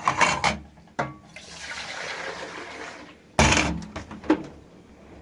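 Handling sounds: a quick clatter and a click, then about two seconds of pouring or splashing water, then a loud knock and a few lighter clicks.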